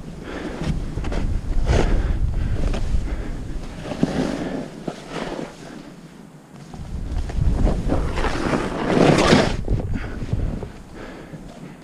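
Snowboard edges scraping and carving through chopped snow, coming in surges with each turn, the loudest a long spraying scrape about three quarters of the way through, over a low rumble of wind on the microphone.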